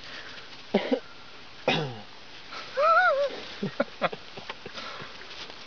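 Short human vocal sounds: two brief coughs or throat clearings, then a short rising-and-falling voiced 'ooh' about three seconds in, followed by a few light clicks.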